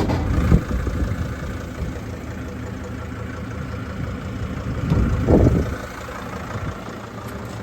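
An engine idling steadily, with a knock just after the start and a brief loud burst of noise about five seconds in.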